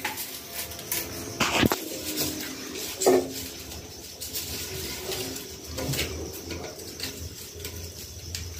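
Dry straw stalks rustling and crackling as they are wound and tucked around a cloth-wrapped clay pot, with light clicks of bangles. A couple of short calls cut in, one sliding down in pitch about three seconds in.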